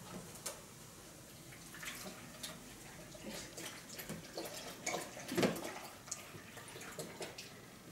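Scattered light clicks and taps of kitchen utensils and dishes as a börek filling is prepared, with a louder knock about five and a half seconds in.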